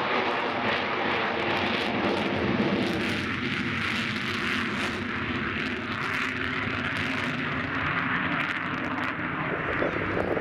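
Avro Vulcan's four Olympus turbojets in flight overhead, a steady rush of jet noise. Several low tones are strongest for the first three seconds or so and then thin out, while the rush carries on.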